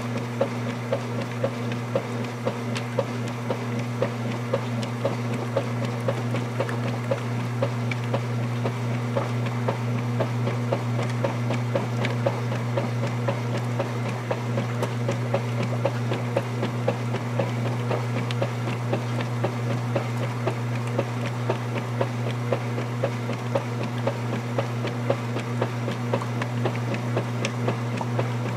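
Vintage KitchenAid direct-drive top-load washing machine agitating a load in its wash cycle: the motor hums steadily while the finned agitator churns the water with an even beat of strokes, somewhat more than one a second.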